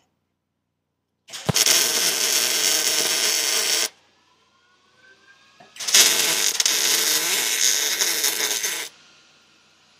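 Arc welding on the steel floor of a Land Cruiser body tub: two runs of steady crackling from the arc, the first about two and a half seconds long and the second about three, with a short pause between.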